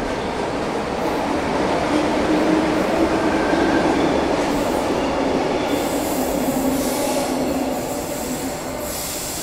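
A Sydney Trains Tangara double-deck electric train departs an underground platform and runs past with a rumble and a steady motor tone, loudest a few seconds in. A high wheel squeal comes in about six seconds in, as the train draws away into the tunnel and fades.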